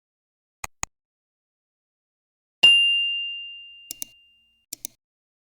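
A single bell-like ding, struck sharply and ringing out on one clear tone that fades over about a second and a half. Before and after it come pairs of short, quick clicks.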